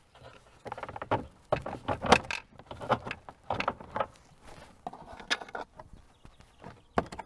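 Hard plastic interior trim panels in a Ford C-Max's cargo area being worked loose by hand from their clips: irregular clicks, knocks and rattles of plastic, the loudest about two seconds in.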